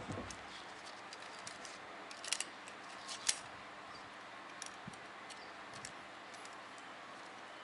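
Light metallic clicks and clinks of a steel piston ring and a sheet-metal ring compressor being handled around a diesel piston, with a dull knock at the start and the sharpest clicks about two and three seconds in.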